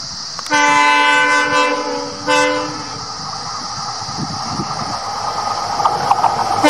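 WDP4D diesel locomotive sounding its multi-note horn: one blast of about a second and a half, then a short second blast. Then the locomotive's engine and wheels grow steadily louder as it approaches, with rail clatter near the end.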